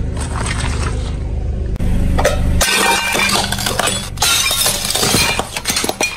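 A low steady hum under a car tyre, then from about two and a half seconds in a ceramic plate cracking and shattering under the tyre, shards crunching and clinking as it rolls over them.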